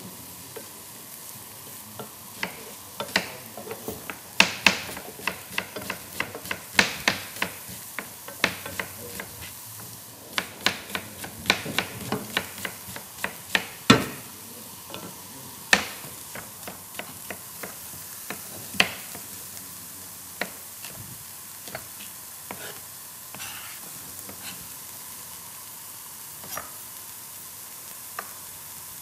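Sliced onions frying with a steady sizzle in a pan, stirred with a wooden spoon, with irregular taps and knocks of the spoon on the pan and a knife on a cutting board. The knocks thin out over the last several seconds.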